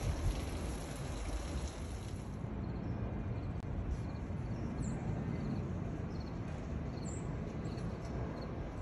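Steady outdoor rushing noise with a low rumble underneath and no distinct events.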